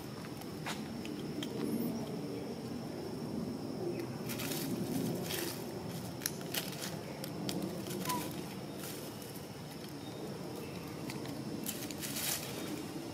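Dry dead leaves rustling and crackling in scattered bursts as a macaque picks through the leaf litter with its hand, over a steady low background noise.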